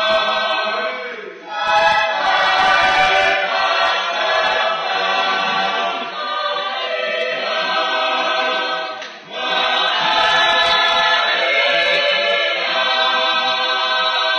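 Tongan choir singing in parts, with held chords. The singing breaks briefly between phrases twice, about a second and a half in and about nine seconds in.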